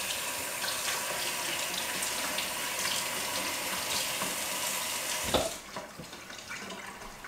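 Kitchen faucet running into a stainless steel sink while hands are rinsed, a steady hiss of water. About five and a half seconds in the water is shut off abruptly with a short knock.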